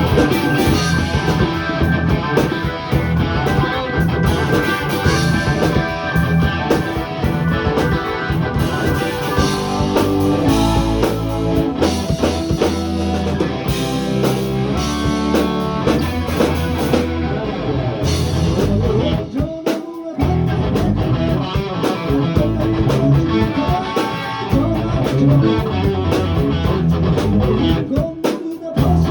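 Rock music with guitar and drums, with a short break in the playing a little past the middle.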